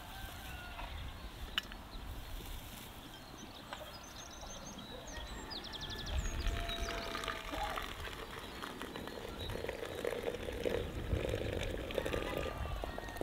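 Outdoor farmyard background with chickens calling now and then and small birds chirping high, most busily around the middle.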